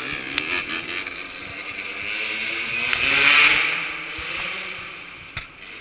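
Motocross bike engine getting louder to a peak a little past the middle, then fading away as it passes, with a few knocks in the first second.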